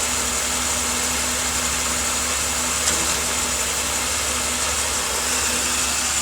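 Ford Taurus running steadily with a low hum and a steady tone, carrying a strange noise from its four-speed automatic transmission (AX4N/4F50N) about a second and a half in, a noise it has made for years. A small click comes near the middle.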